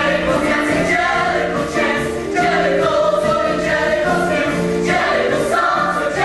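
A company of singers singing a stage-musical number together in chorus, with instrumental accompaniment and held notes.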